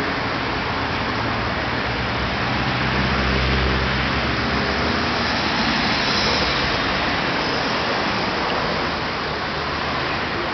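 Steady road traffic on a busy city avenue, cars and vans passing, with a low engine hum from a passing vehicle growing louder about three to five seconds in.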